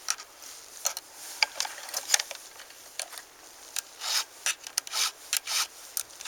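Hand file rasping across the cutters of a chainsaw chain, a series of short strokes that grow louder and closer together in the second half. The file is taking metal shavings off the cutters as it sharpens them.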